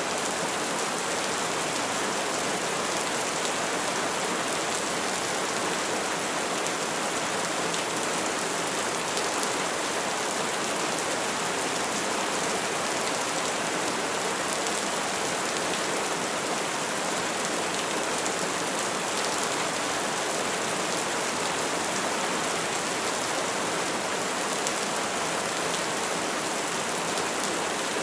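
Steady rain falling on surfaces, an even, unbroken hiss with no thunder.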